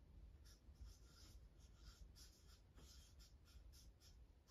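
Faint marker pen squeaking and scratching on flip-chart paper in many short, irregular strokes as a box is drawn and a word is written.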